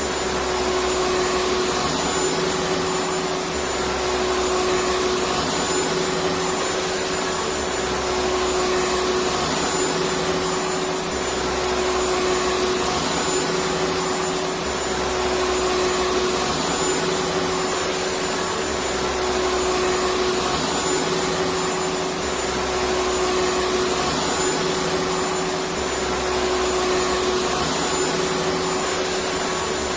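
Vacuum cleaner running continuously: a dense, steady whooshing rush with a constant motor hum, its low rumble swelling and easing every three to four seconds.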